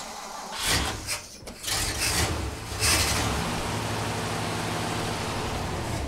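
1957 Oldsmobile Rocket 88's V8 cranking and catching about half a second in, running unevenly with loud surges for a couple of seconds, then settling into a steady run. It is running on a few spoonfuls of gasoline poured down the carburettor, not yet picking up fuel from its gas jug.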